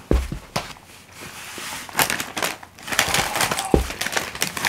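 Foil chip packet crinkling as a hand rummages inside it, a dense crackle for about a second in the middle, with a couple of dull thumps.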